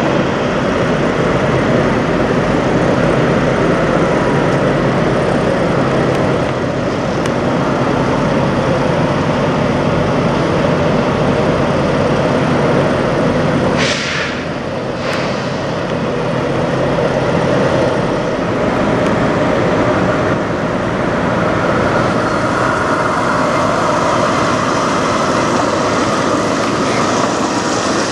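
Parked semi trucks' diesel engines idling, a steady rumble. About halfway through there are two short hisses about a second apart.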